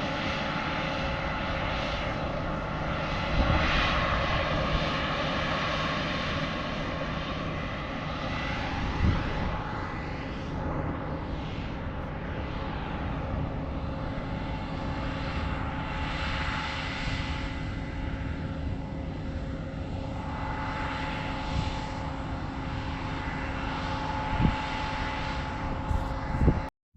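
Steady machine running, a continuous hum with a few held tones and slowly sweeping noise, broken by a few short thumps; it cuts off abruptly near the end.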